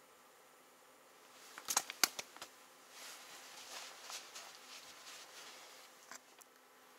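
A caught ripus, a small silvery whitefish, handled and dropped into a fabric fishing bucket: a quick cluster of sharp slaps and clicks about two seconds in, followed by a few seconds of soft rustling and light pattering.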